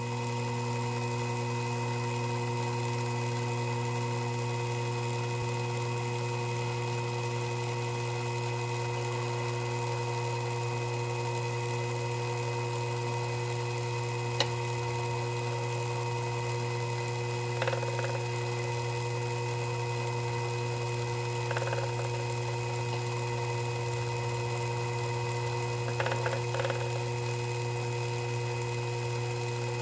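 Sherline miniature lathe's motor running at a steady speed with a constant hum, turning a clock wheel's arbor while a flat steel bar in the tool post is pressed against the pivot to straighten it. A single sharp click comes about fourteen seconds in, and short rubbing noises come a few times in the second half.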